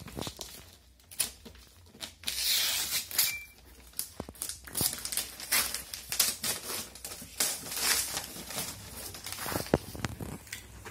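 Gift-wrapping paper being ripped and crumpled off a cardboard box in a series of rips and crinkles, with a longer, louder rip about two seconds in.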